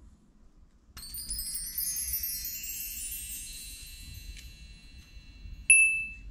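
A shimmering run of high chime tones starts about a second in and rings out slowly. A single sharp, bright ding near the end is the loudest point.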